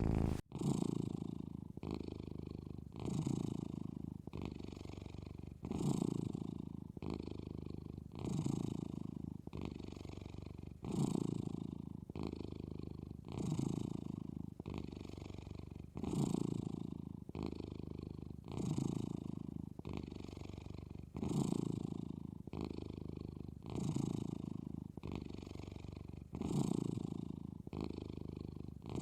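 Sleeping domestic cat snoring in a steady rhythm. A louder rasping breath comes about every two and a half seconds, with a softer one in between.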